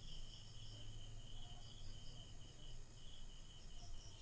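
Crickets chirping in steady pulsing trills, a few pulses a second, over a low hum.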